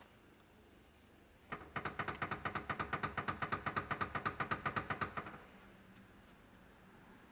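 Ford Mondeo IV steering rack knocking as the steering wheel is rocked back and forth with the engine off: a rapid, even run of sharp knocks, about eight a second, lasting nearly four seconds. The racket is the sign of a worn steering rack, even though there is no free play in the wheel.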